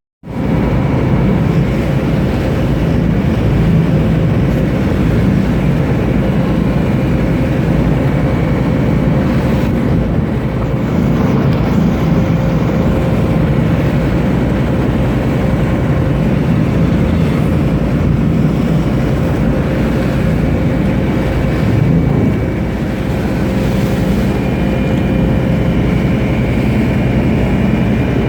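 Loud, steady engine drone: a deep rumble with a few held whining tones over it, unchanging throughout.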